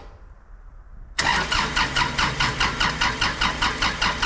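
Tractor engine being cranked over by its starter in a cold start, with the battery not the best: quiet for about a second, then a loud, even cranking rhythm of about four to five pulses a second that carries on without the engine yet catching.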